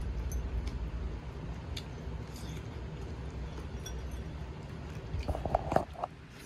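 Cat eating dry kibble from a ceramic bowl: soft crunching and small clicks, with a brief cluster of louder clicks or clinks about five seconds in.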